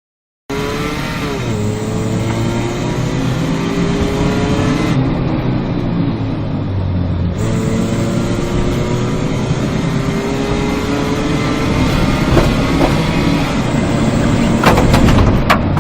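Car engine accelerating hard, its pitch climbing steadily, dropping at a gear change about seven seconds in, then climbing again. A few sharp clicks or knocks come near the end.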